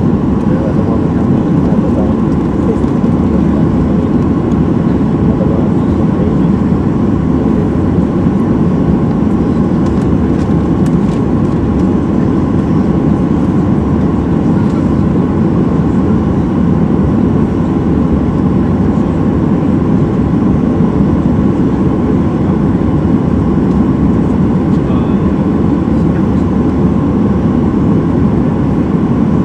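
Boeing 737-800 engine (CFM56-7B) at ground idle, heard inside the cabin next to the engine: a steady, loud rumble with a faint steady whine over it.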